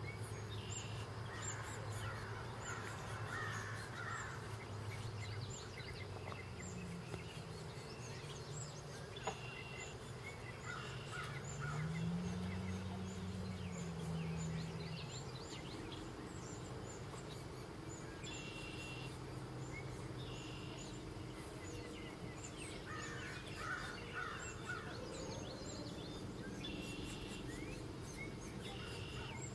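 Outdoor ambience of several birds singing and calling, with many short chirps throughout and brief bursts of song every few seconds. Under it runs a low hum that swells and rises then falls in pitch about halfway through.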